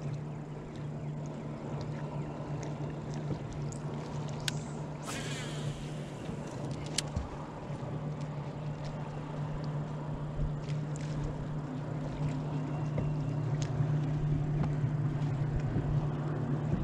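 Electric trolling motor running with a steady low hum. A few sharp clicks and a brief hissing zip come about five seconds in, with another click about two seconds later.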